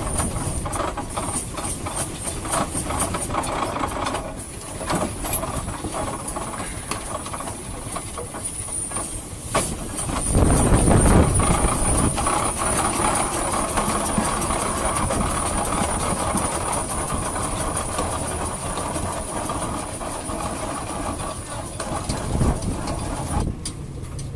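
1918 Nichols & Shepard steam traction engine running under steam, with a regular exhaust beat and a steady steam hiss. About ten seconds in the sound swells into a louder rush for a second or two.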